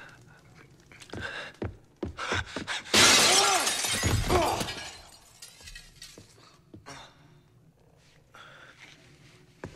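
A few knocks and scuffles, then a large mirror crashing and shattering about three seconds in, with glass pieces scattering on a wooden floor for a couple of seconds.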